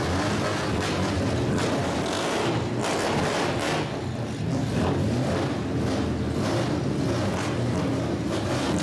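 Straight-piped exhaust of a lowered classic Nissan Fairlady Z rumbling loudly and steadily at low revs as the car pulls away slowly.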